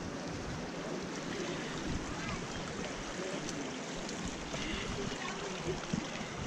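Shallow creek water running over rocks.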